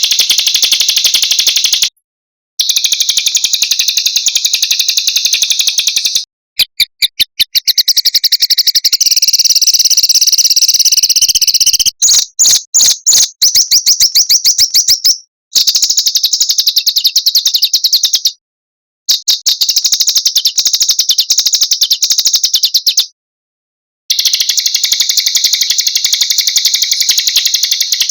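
Recorded song of small songbirds used as masteran (song-training audio): long, rapid, high-pitched trills and rolls of chirps. It breaks off abruptly into silence several times, for about half a second to a second each.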